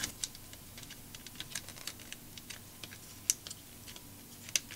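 Small scattered clicks and taps, faint, with two sharper clicks in the second half, as the CMOS battery's small connector is handled and plugged onto a laptop motherboard.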